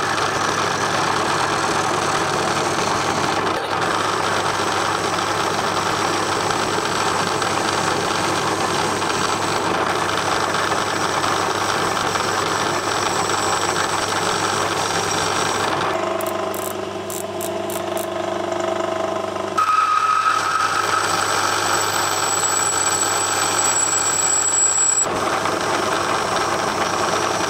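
Metal lathe running while a carbide-insert tool turns a mild steel bar down: steady motor hum with the hiss of the cut. The sound changes and drops a little about two-thirds of the way in, then comes back with a faint high whine.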